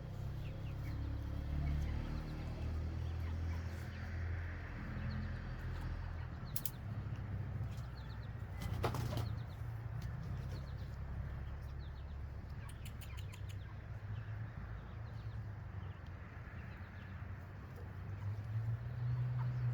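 A low, uneven rumble of wind on the microphone, with a few sharp clicks; the clearest click comes about nine seconds in.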